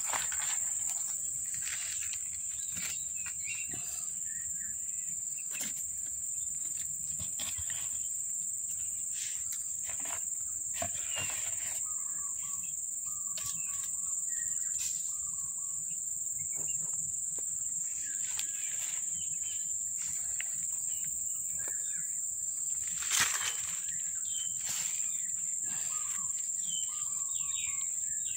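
Insects droning in a steady high-pitched chorus, with short bird chirps from about halfway on and scattered soft rustles and knocks, the sharpest one late in the stretch.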